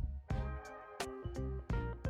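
Background music with a steady beat: bass notes, a melody and sharp percussion hits.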